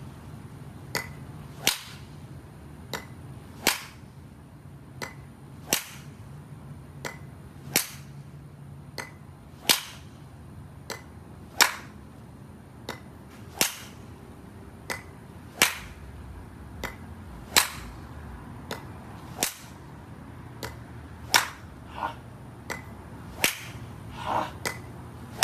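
Golf driver striking balls off a driving-range mat in quick succession, a sharp crack about every two seconds. Each crack comes with a softer click just before it.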